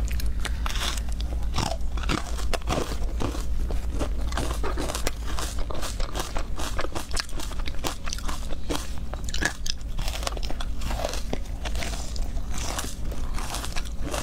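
Soft, powdery ice coated in matcha powder being bitten and chewed close to the microphone: a dense, irregular run of crunches. A steady low hum sits underneath.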